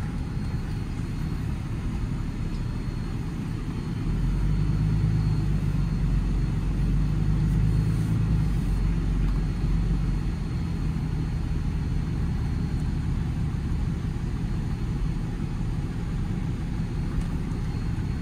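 Cummins 6.7 turbodiesel of a 2012 Ram 5500 running under way, heard from inside the cab together with road noise as a steady low rumble. It grows louder about four seconds in and eases slightly after about ten seconds.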